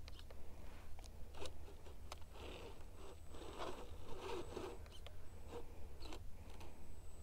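Axial Capra RC crawler's tyres scrabbling and crunching on sandstone and grit as it works up a rock ledge: scattered sharp clicks and scrapes, busiest about halfway through.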